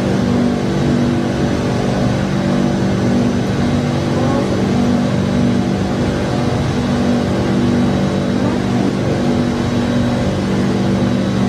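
Steady drone of a metro train standing at an underground platform with its doors open: an even hum with several low held tones over a noise of air and machinery.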